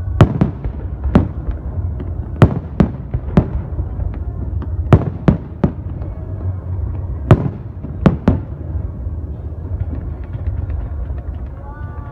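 Fireworks display: aerial shells bursting with sharp bangs, about a dozen at irregular intervals over a steady low rumble. The bangs stop for the last few seconds, leaving the rumble.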